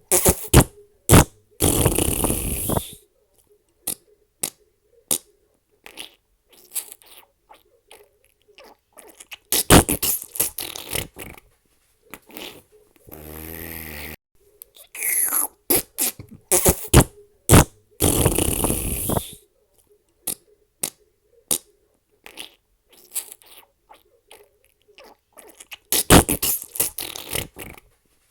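A string of fart sound effects: many short, sharp farts and a few longer sputtering ones, separated by brief pauses, with one buzzy, pitched fart about halfway through.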